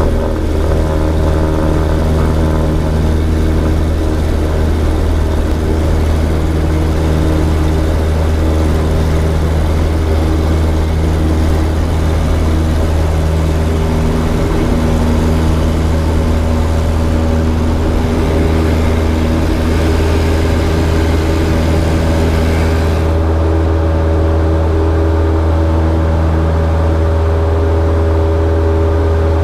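Single-engine propeller plane's engine and propeller at full take-off power, a loud steady drone heard from the cockpit during the take-off roll. The higher rushing hiss of the roll drops away about three-quarters of the way through, as the plane lifts off.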